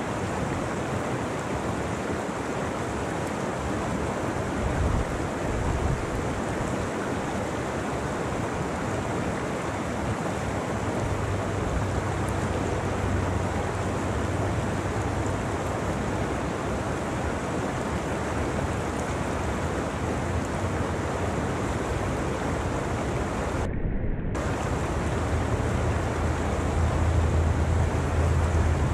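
Fast mountain creek rushing over rocks in a steady, even wash of whitewater. A low rumble swells under it twice, and the sound briefly goes dull about 24 seconds in.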